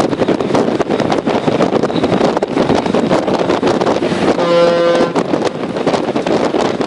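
Wind buffeting the microphone over steady sea and ship noise, with one short blast of a warship's whistle about four and a half seconds in, part of a short-blast warning of collision danger.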